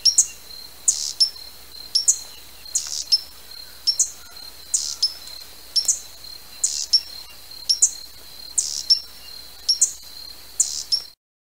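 Hummingbird giving sharp, high chip calls, mostly in close pairs about once a second, over a faint steady high whine.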